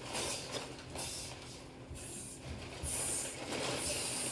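Irregular rustling and handling noises close to the microphone, with cloth and things moving against it.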